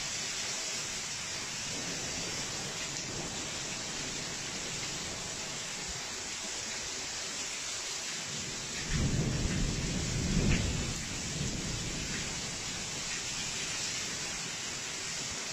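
Heavy thunderstorm rain pouring steadily. About nine seconds in, a low rumble of thunder swells for two to three seconds.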